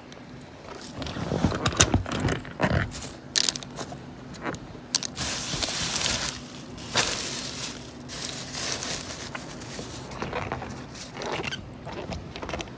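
Thin plastic bag crinkling and rustling in irregular bursts as it is handled, loudest in the first few seconds and again midway, over a faint steady low hum.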